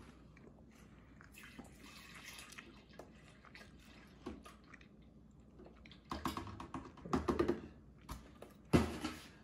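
Whole milk pouring from a plastic gallon jug into a blender jar, in uneven bursts, with one sharp knock near the end.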